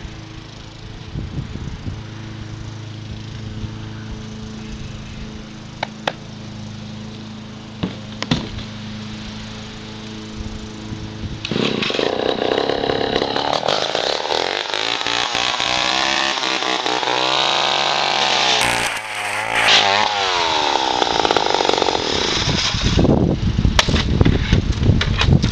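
A two-stroke chainsaw runs with a steady low hum, then about eleven seconds in revs up hard and saws through a plastic inkjet printer, its pitch sagging and rising as the chain bites. Near the end it runs rougher, with sharp spikes.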